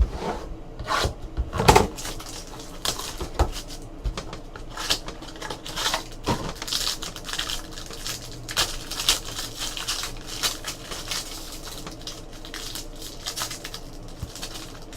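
Trading cards being handled and sorted on a table: irregular clicks, taps and rustles, with the sharpest taps in the first two seconds.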